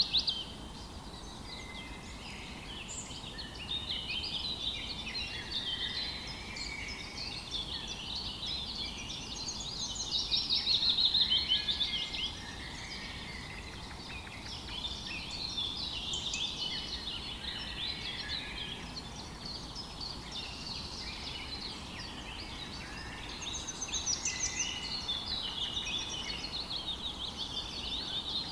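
Several songbirds singing at once in a dense chorus, with a loud run of fast repeated notes about ten seconds in and another near the end, over a steady low rush of flowing water.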